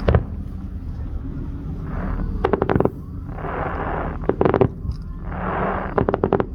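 Consumer fireworks firing: repeated rounds, each a rushing hiss followed by a quick cluster of sharp cracks, about every two seconds. A steady low rumble runs underneath.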